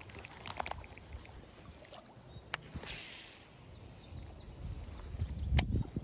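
Baitcasting rod and reel being handled: a few sharp clicks from the reel, a brief swish about three seconds in, and a louder click with a thump near the end, over a low rumble.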